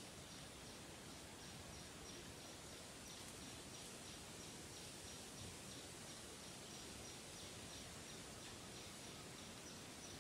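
Faint field ambience: an insect chirping high and fast in an even, unbroken pulse over a low steady hiss.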